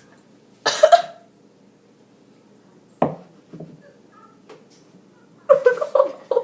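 A person's coughs and short throat and mouth noises of disgust at a foul-tasting drink: a rough burst about a second in, a sharp one about three seconds in, and a quick cluster of short voiced sounds near the end.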